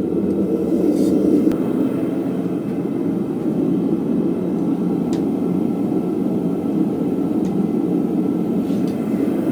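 Blacksmith's forge running with a steady, even rushing noise while a steel slot punch is heated back up to critical temperature, with a few faint clicks.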